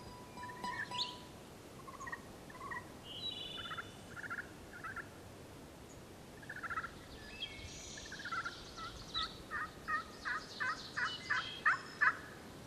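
Woodland birdsong: scattered short whistled and chirped calls from more than one bird. In the second half comes a run of about a dozen quick repeated notes that grows steadily louder.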